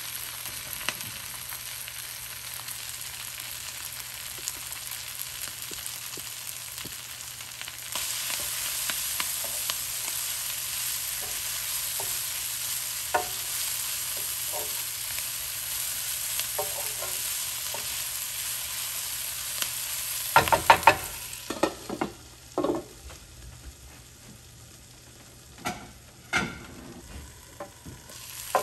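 Chopped kale and cabbage sizzling in oil in a frying pan while stirred with a wooden spatula, with light taps and scrapes of the spatula against the pan. About two-thirds of the way through comes a quick run of loud knocks and clatters, after which the sizzling fades and a few more knocks follow.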